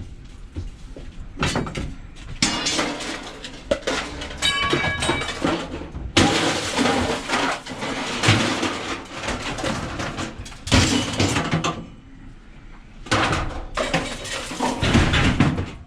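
Scrap metal clattering and crashing in a long run of irregular impacts as it is handled and thrown about, with one piece ringing briefly about four and a half seconds in.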